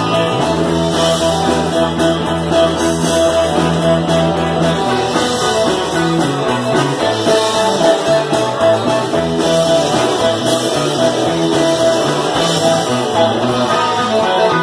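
Live amplified rock band playing, with electric guitars and a drum kit. The low bass line holds long notes for the first few seconds, then moves note to note.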